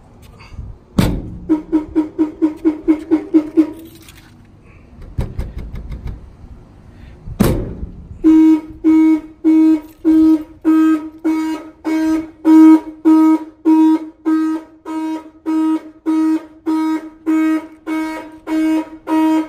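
Car alarm sounding through the truck's horn. There is a quick run of about ten short honks a couple of seconds in, then a long string of evenly spaced honks, nearly two a second, from about eight seconds in. Two loud thunks come about a second in and about seven seconds in.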